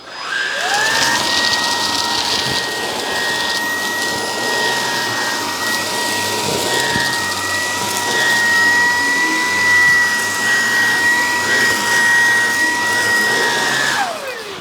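Hoover Emerge Pet cordless stick vacuum switched on with a hand tool fitted, picking up pet hair. The motor spins up to a steady high whine, runs, then is switched off and winds down near the end.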